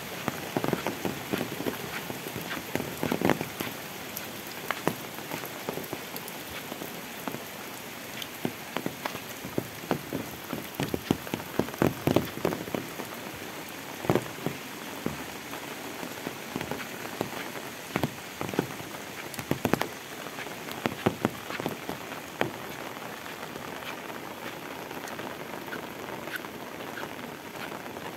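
Heavy tropical rain falling steadily onto leaves and an asphalt lane, an even hiss. Over it come many loud, irregular close drop hits, bunched thickest around the middle of the stretch.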